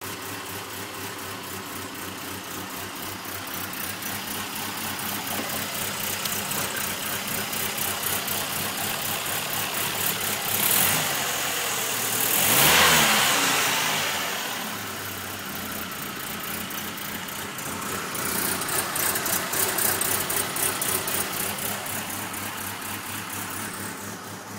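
2002 Mitsubishi Lancer four-cylinder engine idling with a pulsing beat, revved up and back down once about halfway through. The engine misfires only at idle, even after new spark plugs and wires and a cleaned EGR valve.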